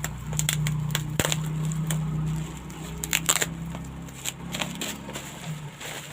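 Bubble-wrapped package being handled and unwrapped: irregular crackles and sharp clicks of plastic wrap, over a steady low hum that stops near the end.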